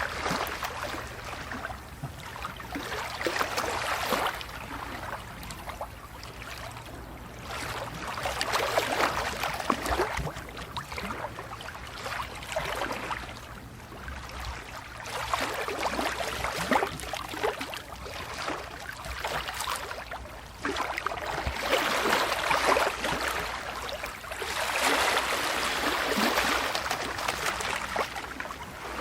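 Water lapping, small waves splashing and gurgling against a hull or shore in irregular swells every few seconds.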